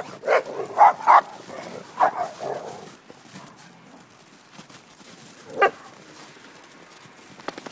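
Dogs barking: a quick run of short barks in the first couple of seconds, then a quieter stretch and one more single bark later on.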